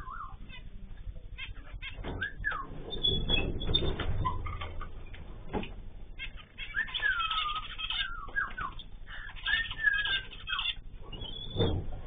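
A mixed flock of small cage birds in an aviary (canaries, zebra finches and a cockatiel) chirping and giving whistled calls that glide up and down, busiest about seven to ten seconds in. A low rushing noise comes about three to five seconds in, and there are a couple of sharp knocks.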